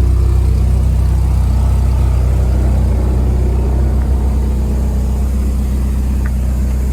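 Nissan S13 240SX engine idling steadily, a low, even drone from the exhaust.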